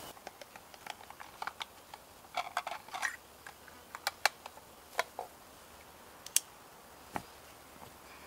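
Sharp clicks and crinkles of a small clear plastic packet being handled and opened, with a few louder single clicks, and one dull knock near the end.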